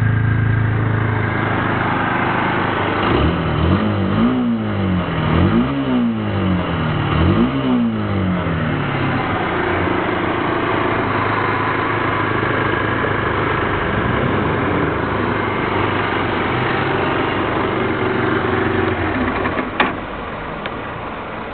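Kymco Quannon 125 cc motorcycle engine idling, blipped three times in quick succession a few seconds in; each rev rises sharply and falls back to idle. Near the end there is a click and the engine sound falls away.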